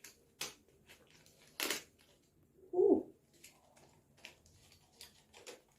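A few short rustles and clicks of small packaged items being handled, the biggest a brief crinkle a little before two seconds in, with lighter ticks after; a woman says "ooh" about three seconds in.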